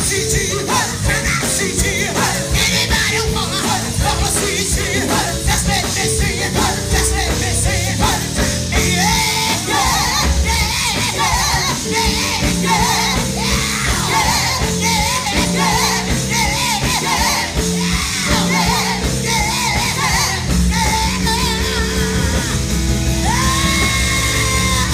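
Live gospel singing by women vocalists with a band of drums and keyboard, loud and steady on a driving beat. A long held sung note comes near the end.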